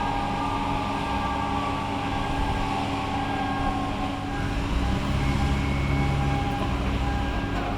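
Boeing 777-200ER's turbofan engines running at low power, a steady rumble with high whining tones, the rumble growing a little louder about five seconds in.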